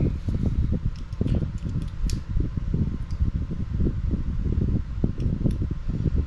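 A fan running steadily with a fluttering low hum, and light clicks of small screws and plastic kit parts being handled.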